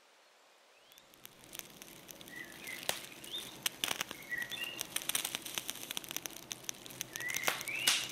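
Nature ambience fading in about a second in: short, repeated bird chirps over a steady run of crackling clicks.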